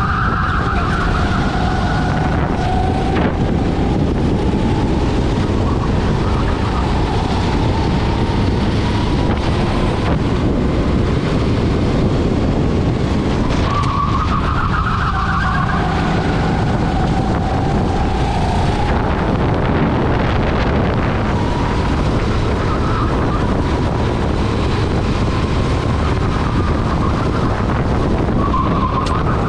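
Rental racing kart's engine running at race speed, heard from onboard with wind rushing over the microphone; its pitch drops into corners and climbs again on the exits, about every fifteen seconds.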